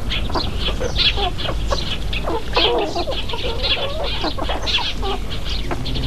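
A flock of chickens clucking and calling over and over, many short calls close together, over a steady low hum.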